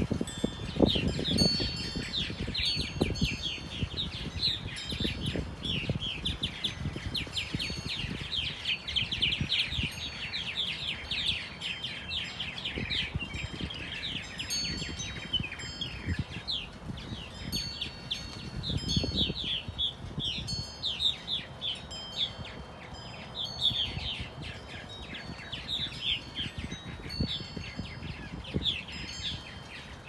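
A colony of purple martins chirping and chattering without pause, a dense stream of quick falling chirps, with gusts of wind rumbling on the microphone.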